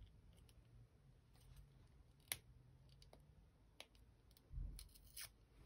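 Faint scattered small plastic clicks and a soft knock while a small Stampin' Spot ink pad is handled and its lid worked open, a lid that does not come open easily.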